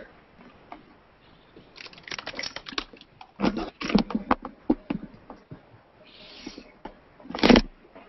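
Plastic bag crinkling and rustling as it is handled, a run of crackles with a louder rustle near the end.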